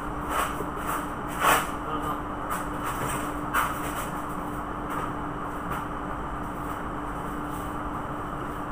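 Steady machinery drone with a constant low hum running through it, and a few sharp knocks and clicks in the first few seconds.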